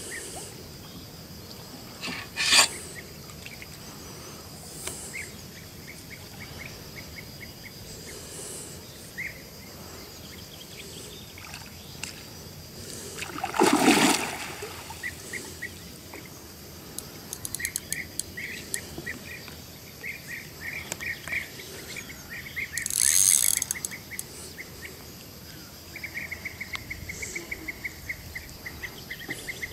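A hooked carp splashing at the water surface: a short splash a few seconds in, and the loudest splashing about halfway through as the fish is drawn into the landing net, with another splash later. A fast, even ticking chirp of insects runs through the second half.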